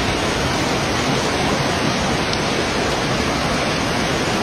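Muddy flash-flood water rushing down a street, a steady, even rushing noise.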